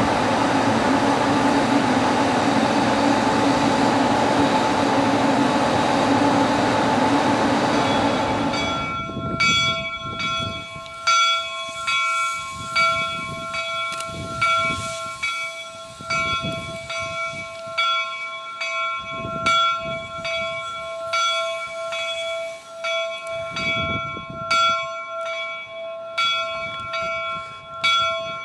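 A steady loud hissing hum at first, then, after about nine seconds, the bell of a replica Central Pacific "Jupiter" 4-4-0 steam locomotive ringing steadily, about one stroke every 0.7 seconds, as the engine moves out. Soft puffs of steam sound underneath the bell.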